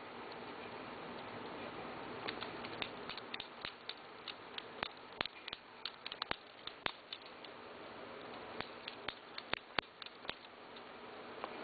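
Lego butterfly knife being flipped and handled, its plastic brick handles clicking and clacking in irregular clusters with short pauses.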